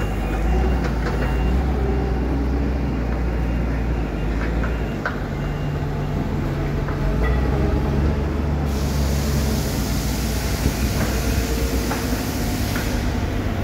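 Diesel engines of Caterpillar 924H and 914K wheel loaders with log grapples running as the machines drive, a steady low rumble with a few light knocks. A loud hiss sets in about nine seconds in and cuts off sharply about four seconds later.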